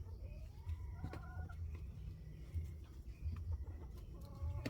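A chicken clucking, a short run of calls about a second in and another near the end, over a steady low rumble.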